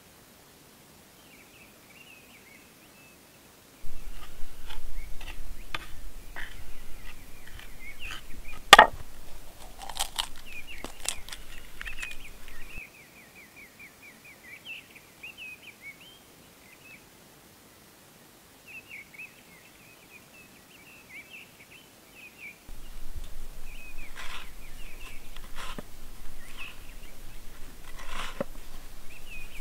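Small birds chirping and twittering, over scattered clicks and taps of food being handled on a wooden board, with one sharp knock about nine seconds in. A low steady rumble comes and goes in two stretches, quieter in the middle.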